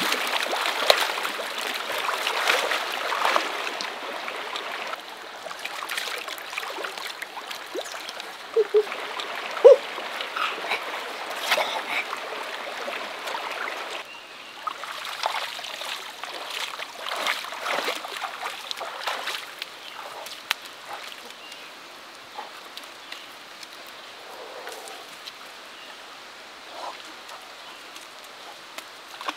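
Shallow river water being splashed by a person moving through it, over the steady rush of the flowing stream. The splashing is busiest and loudest in the first half; about halfway through it drops away suddenly to a quieter stream with only occasional splashes.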